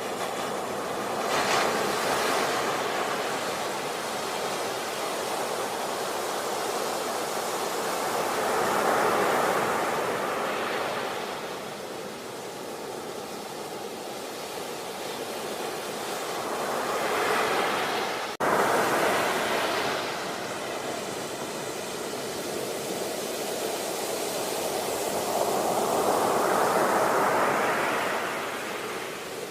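Sea waves breaking and washing on the shore, the surf swelling and ebbing about every eight seconds. There is a brief sharp dropout about two-thirds of the way through.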